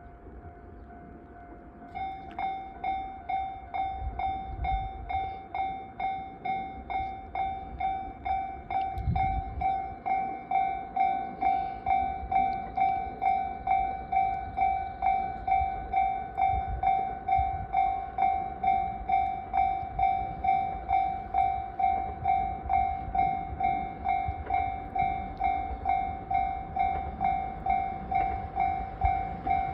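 Railway level crossing warning bell ringing, about two strokes a second, starting about two seconds in after a fainter steady tone. It signals that a train is approaching the crossing.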